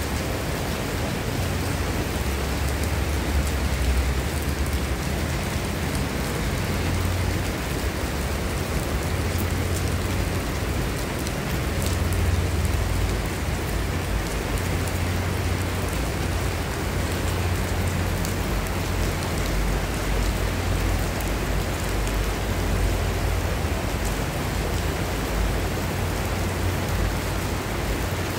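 Heavy tropical rain falling on paving and open ground: a dense, steady hiss. Under it, gusts of wind rumble unevenly on the microphone.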